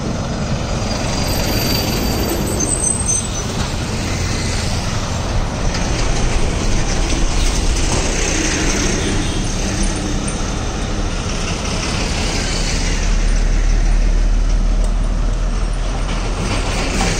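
Highway traffic passing close by: a loaded lorry, a car and a bus drive past one after another, engines running and tyres rolling on asphalt. The noise swells as each vehicle goes by and is loudest about three-quarters of the way through.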